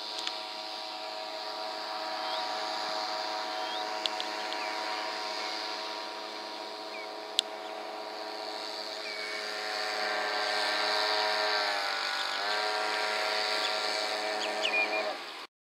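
Small outboard motor running steadily on a boat under way, growing louder as the boat comes closer. Its pitch dips briefly about twelve seconds in and then picks up again.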